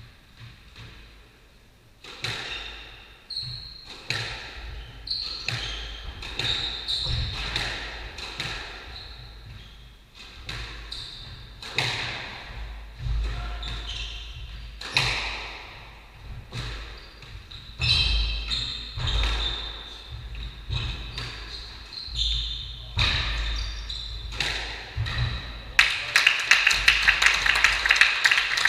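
Squash rally: the ball cracks off the rackets and smacks against the court walls in an irregular rhythm, with shoes squeaking on the sprung wooden floor. Near the end, applause breaks out when the rally ends.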